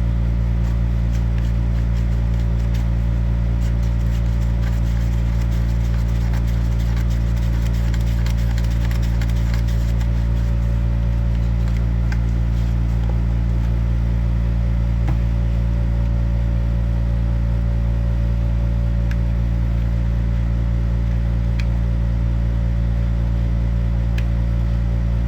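A steady low machine hum, unchanging throughout, with a few faint light clicks over it.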